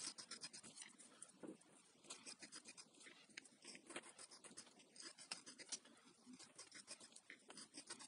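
Faint, rapid scratching of a small blade scraping the insulating coating off the fine copper strands of a hair dryer's power cord, cleaning the wire ends so they will take solder.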